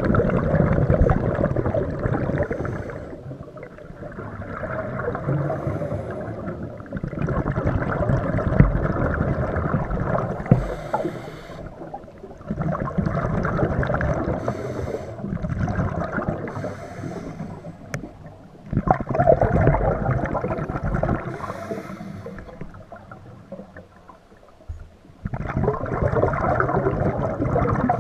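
Scuba breathing underwater through a regulator: a loud rush of exhaled bubbles lasting a few seconds, repeated about six times, with quieter spells between breaths.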